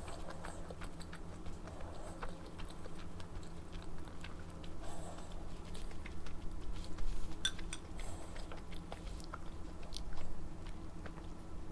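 Close-miked chewing and mouth sounds of someone eating a shrimp dumpling, with scattered small wet clicks.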